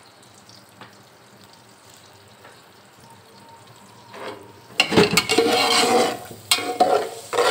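Cooking oil being poured into a pot of sliced raw onions: after a faint stretch, the loud pour starts about five seconds in and goes on in several surges.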